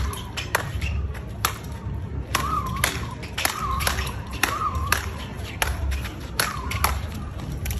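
A rapid speedball rally: paddles strike the ball tethered to the pole in quick succession, sharp hits about two to three a second. Short wavering squeaks sound between some of the hits.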